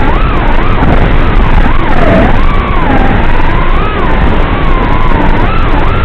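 Racing quadcopter's brushless motors (T-motor F40 Pro II, 2600 kV) whining over rushing propeller noise, the pitch swooping up and down every second or so as the throttle changes through the turns.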